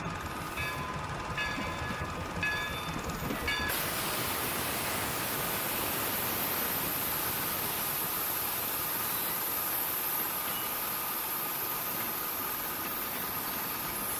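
4-4-0 steam locomotive and its coaches rolling past on the rails. About four seconds in, a steady hiss of steam sets in suddenly and continues as the cars go by.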